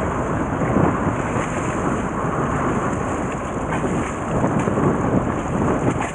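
Wind buffeting the microphone aboard a fishing boat: a steady rushing noise with low rumbling gusts.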